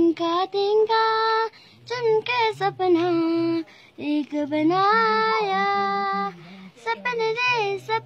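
A child singing a slow melody with long held notes, phrase by phrase with short breaks between.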